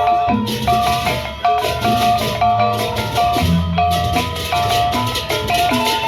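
Gendang beleq ensemble playing a tabuh pembuka (opening piece). Large drums are beaten under a repeating melody of short pitched gong notes, with a steady, rhythmic clash of cymbals.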